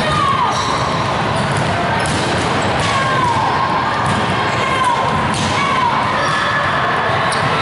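Volleyballs being hit and bouncing on a gym floor, an irregular series of sharp thuds from several players at once.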